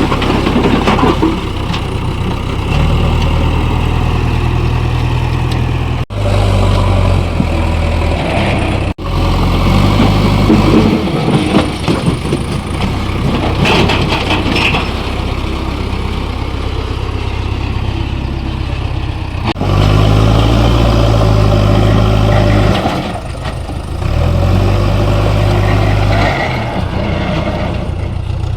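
Diesel engines of a JCB backhoe loader and tractors running at work. The sound breaks off abruptly twice, a few seconds apart, and there are scattered knocks in the middle. The engine grows louder and deeper about two-thirds of the way through.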